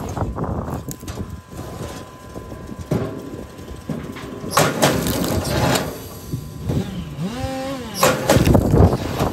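Small log splitter working: its ram drives log rounds onto the wedge, and the wood cracks loudly as it splits, about four and a half seconds in and again near the end. A short whine rises and falls a little after seven seconds.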